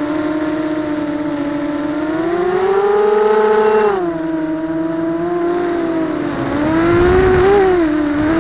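ZMR250 racing quadcopter's brushless motors and propellers whining, heard from the camera on board. The pitch climbs from about two seconds in, drops sharply at about four seconds, then wavers up and down near the end, with a low rush of air.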